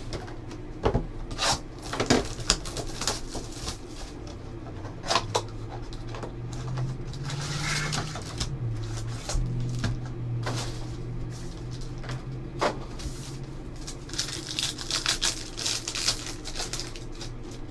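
Hands opening a Panini Preferred trading card box and pack: cardboard and pack wrapper rustling and crinkling, with scattered taps and clicks as cards are handled. The rustling is strongest about seven seconds in and again near the end.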